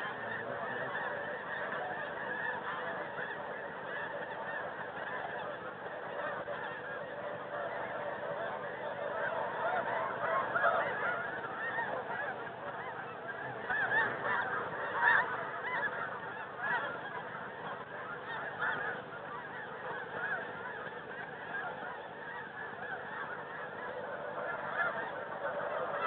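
Many snow and Ross's geese calling together, a dense, unbroken chorus of high honks, with a few louder calls standing out about ten and fifteen seconds in.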